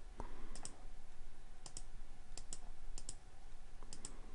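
Computer mouse button clicks, about five or six, each a quick double tick of press and release, spaced irregularly.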